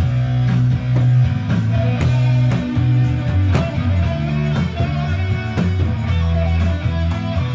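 Rock song playing, with electric guitar and bass over a steady drum beat; an instrumental stretch without singing.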